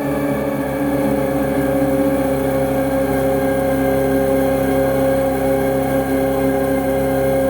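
Harsh noise music: a dense, steady electronic drone of several held tones over a rough, grainy low rumble.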